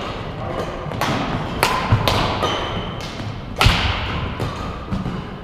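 A series of irregular thumps and sharp knocks, about half a dozen, the loudest about two thirds of the way through, with a few brief high-pitched squeaks or tones between them.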